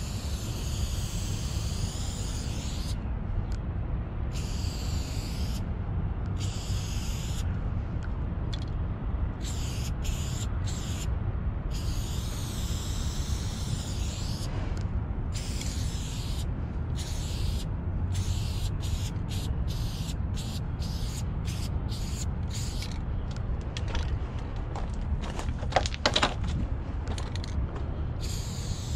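Aerosol spray paint can spraying in on-and-off bursts, long sprays at first and then many quick short ones, over a steady low rumble. A couple of sharp clicks near the end.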